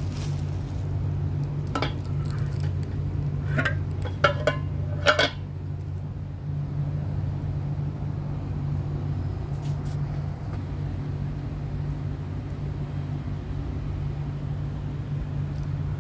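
A steady low mechanical hum with a handful of sharp clinks and knocks of kitchen items being handled, clustered between about two and five seconds in.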